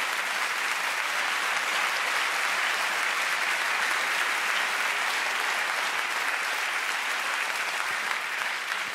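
Audience applauding, a steady dense clapping that begins to die down at the very end.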